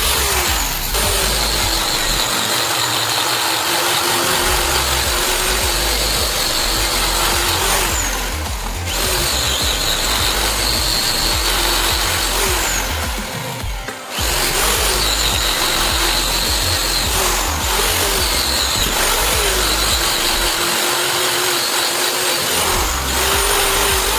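Electric power tool running, its pitch sagging and recovering as it bears on the work, with a couple of abrupt breaks where it stops and restarts.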